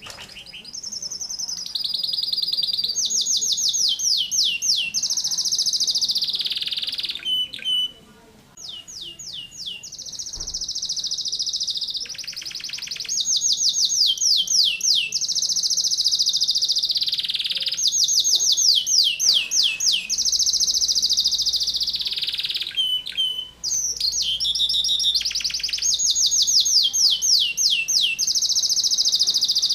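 Domestic canary singing persistently in long, dense runs of rapid-fire repeated notes and rolling trills ('tembakan rapat'), high-pitched, with brief breaks about 8 and 23 seconds in.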